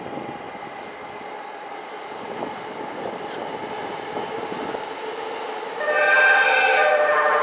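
Electric trains running on the tracks, a steady rumble. About six seconds in, a loud, steady high-pitched sound of several tones sets in.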